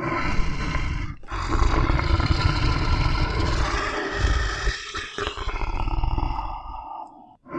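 Tiger roaring and growling in long, deep stretches. It breaks off briefly about a second in and again near the middle, then fades out near the end.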